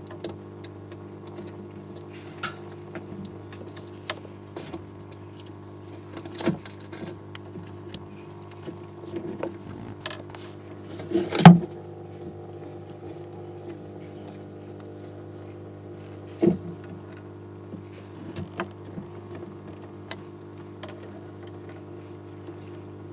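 A steady low mechanical hum with scattered sharp clicks and knocks. The loudest is a cluster of knocks about eleven seconds in, with smaller single knocks a few seconds before and after.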